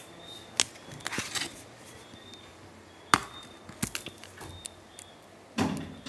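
Night ambience: a faint, high, steady chirping tone that comes and goes, broken by several sharp clicks and knocks. The loudest click comes about three seconds in, and a brief rustling burst comes near the end.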